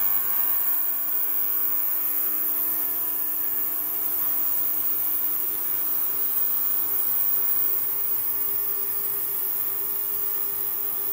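Ultrasonic cleaning tank running: a steady high hiss with several steady humming tones underneath, the noise of ultrasound cavitating the water.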